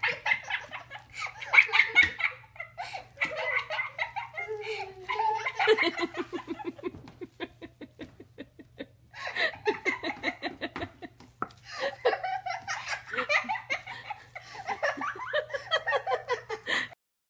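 People laughing hard in bursts of giggles and belly laughs, over a faint steady low hum. The laughter cuts off suddenly near the end.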